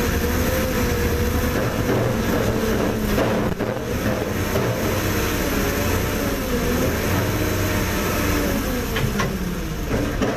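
Mobile crane's diesel engine running steadily under load, a continuous low drone whose pitch wavers up and down and dips near the end.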